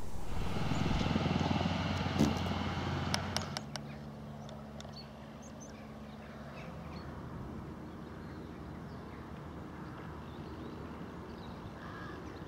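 Fendt tractor's diesel engine running as it pulls a cultivator through a worked field, with a few sharp clicks from the implement. It cuts off suddenly about three and a half seconds in, leaving a quieter low hum with birds calling.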